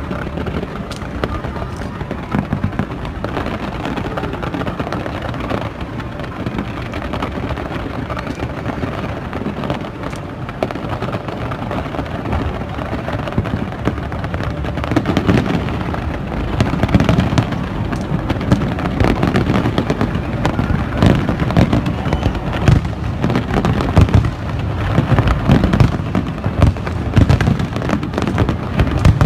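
Fireworks display: a continuous rumble of shell bursts and crackle, building to louder, denser bangs in the second half.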